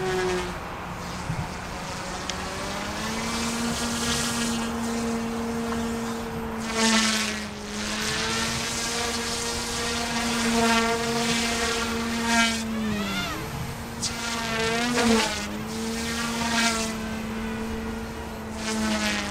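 OMPHOBBY M2 micro RC helicopter's direct-drive electric main and tail rotor motors running in flight, a steady whine. Several times it briefly swells louder, and about two-thirds through the pitch dips and climbs back twice.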